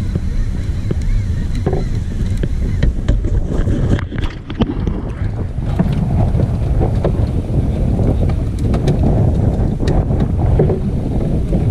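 Wind buffeting the microphone over the wash of choppy sea against a small skiff's hull, with scattered short knocks and splashes.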